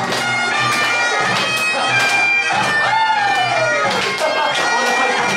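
Great Highland bagpipes playing a tune: the steady drones hold under the chanter's melody.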